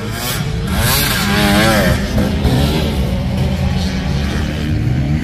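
Motorcycle engines running and revving, with an engine note that swings quickly up and down in pitch between about one and two seconds in.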